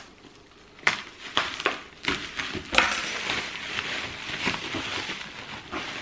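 Shoe-box wrapping being handled by hand: paper and plastic crinkling and rustling in a string of sharp, irregular crackles, starting about a second in.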